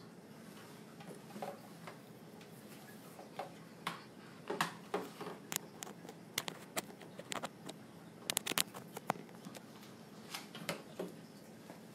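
Thick chicken and dumplings stew simmering in an open pot, its bubbles popping in irregular clicks and blips over a faint steady hiss, busiest in the middle.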